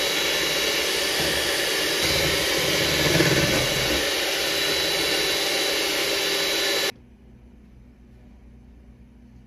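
Black+Decker electric hand mixer running steadily, its beaters whipping egg whites to peaks in a stainless steel bowl; the whir cuts off suddenly about seven seconds in.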